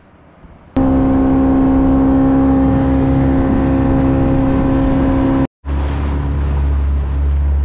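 Outboard motor running at a steady speed as the boat moves across open water. It starts abruptly about a second in, drops out for a moment about five and a half seconds in, then returns with a deeper rumble.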